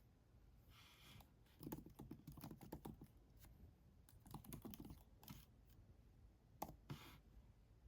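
Faint typing on an Apple Magic Keyboard for iPad: quick runs of key clicks in three short bursts with pauses between.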